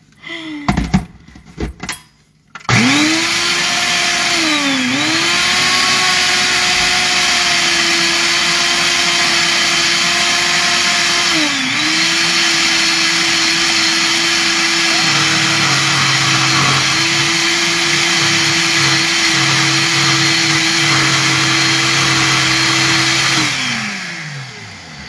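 Ninja personal-size blender motor running at high speed, blending frozen mixed berries and spinach into a smoothie. It starts about two and a half seconds in after a few knocks, dips briefly in pitch twice, then winds down and stops near the end.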